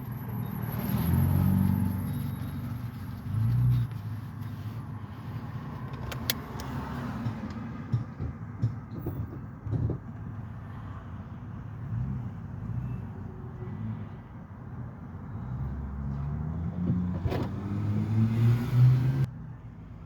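EMD GP-series diesel switcher locomotive passing, its engine giving a low, steady rumble with a few sharp knocks. The sound cuts off suddenly near the end.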